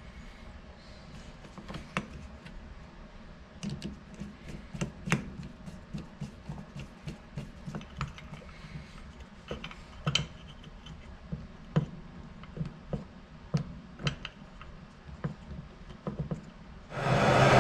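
K24 turbocharger being reassembled by hand: irregular light metallic clicks and taps as the back plate is seated and its screws are turned with a screwdriver. Near the end a loud, steady hiss starts suddenly: a handheld gas torch burning.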